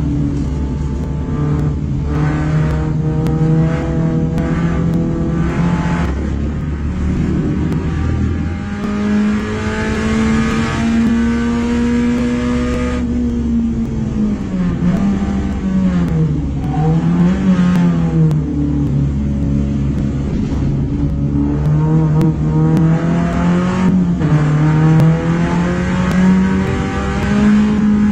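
Daihatsu Gino race car's swapped-in Perodua Alza 3SZ-VE 1.5-litre inline-four, heard from inside the cockpit at race pace and revving between about 4,000 and 7,000 rpm. The pitch climbs under power, swings down and up several times around the middle while off the throttle for a corner, then climbs and holds high again.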